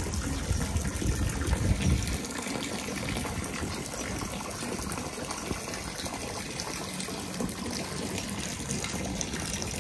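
Water gushing steadily into a koi pond from a pipe inlet, churning and splashing the surface. A low rumble sits under it for the first two seconds.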